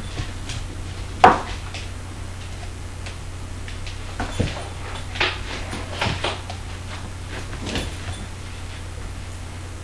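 A few short knocks and taps, the sharpest about a second in and more scattered from about four to eight seconds in, from a Labrador and a Border Collie puppy playing on a tiled kitchen floor, over a steady low hum.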